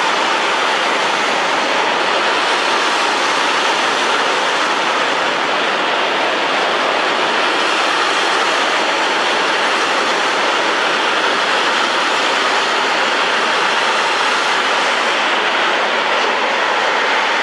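A train passing at speed, a steady rushing noise of the cars and wheels on the rails that holds an even level throughout.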